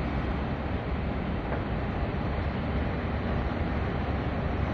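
Steady low rumble and hiss: wind buffeting the microphone over the sound of the cruise ship Explorer Dream passing close by.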